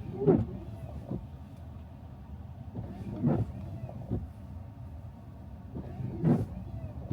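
Car running on a snowy road, heard from inside the cabin: a steady low road and engine rumble. A regular stroke repeats about every three seconds, each followed by a smaller knock a second later, in the manner of windshield wipers clearing snow.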